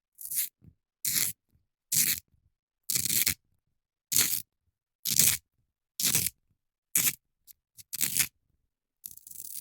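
Scissors cutting through paper in a steady series of nine snips, about one a second.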